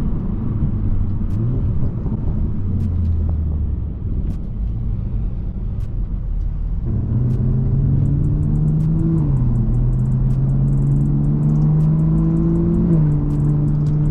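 BMW 340i's B58 turbocharged inline-six, breathing through an axle-back exhaust with the resonators deleted, running low and steady at first. From about seven seconds in it accelerates hard, its pitch climbing steadily and dropping sharply at an upshift about nine seconds in, then climbing again to a second upshift near the end.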